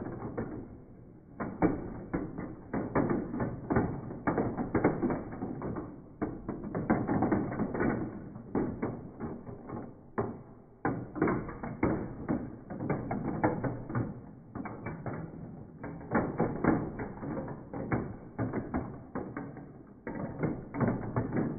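Glass marbles rolling and clattering through a plastic marble run, slowed down with the slow-motion picture, so the rattle is dull and muffled. The clatter runs almost without a break, with short lulls.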